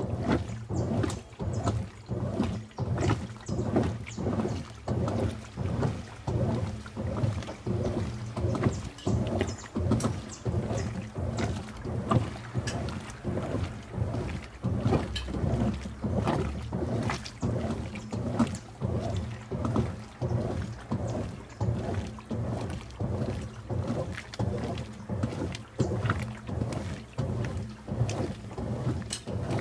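Washing machine mid-wash, agitating a load of clothes in water: a steady rhythm of sloshing strokes over a low motor hum.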